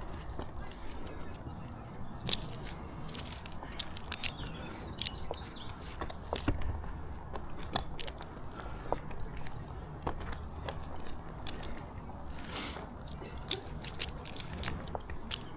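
Tree climber's metal climbing hardware, carabiners and clips, clinking and jangling as he moves in the tree, with scattered knocks and rustling; the sharpest metallic clink comes about halfway through.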